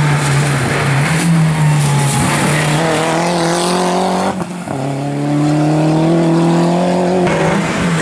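Rally car engine accelerating hard, its pitch climbing, with a short break about four and a half seconds in at a gear change and then climbing again. The engine note cuts off abruptly about seven seconds in.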